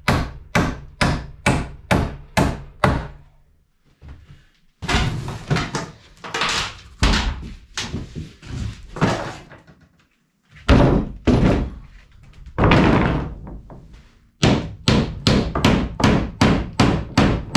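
Claw hammer driving nails into a wooden 2x4 and plywood floor frame: runs of sharp, evenly spaced blows, about two to three a second, at the start and again near the end. In between come heavier, rougher thuds and scrapes of wood being handled.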